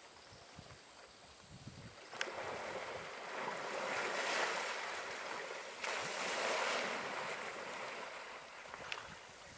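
Water splashing and sloshing as young African elephant bulls wrestle in a waterhole. It starts about two seconds in and swells twice before easing off near the end.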